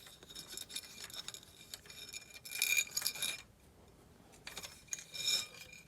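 Light clicking and rattling of small parts being handled as turn-signal wires and their plug connectors are fed through a motorcycle fender-eliminator bracket. There is a louder flurry of clicks about two and a half seconds in and another near the end.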